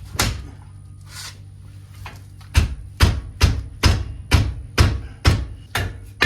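A few isolated sharp knocks, then from a couple of seconds in a steady run of sharp knocks or strikes, a little over two a second.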